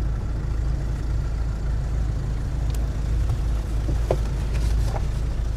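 Small car's engine idling, heard from inside the cabin as a steady low rumble. A few faint clicks come in the second half as the passenger door is opened and the passenger climbs out.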